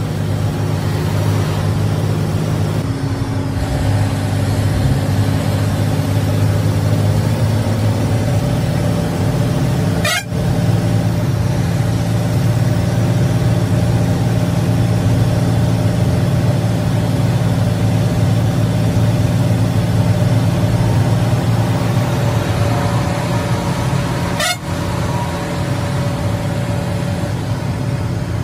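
Diesel bus engine running steadily at highway speed, heard from inside the driver's cab, with two brief breaks in the sound.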